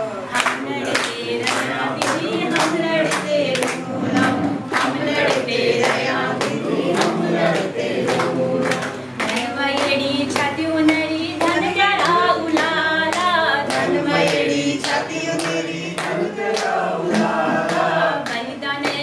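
A group of women singing a Kumaoni folk song together, led by one woman's voice, with hand-clapping keeping a steady beat of about two claps a second.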